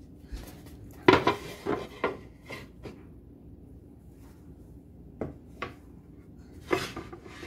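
Hard kitchen items clinking and knocking as they are handled and set down: a burst of several knocks about a second in, two single knocks later, and another short burst near the end.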